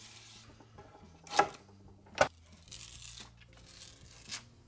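Carpet tape being torn off the roll and peeled on a pine board. There are two sharp rips, about a second and a half and two seconds in, with softer rasps of tape pulling free before and after.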